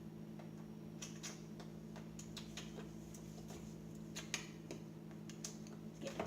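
Scattered light clicks and taps of things being handled, a little busier near the end, over a steady low hum.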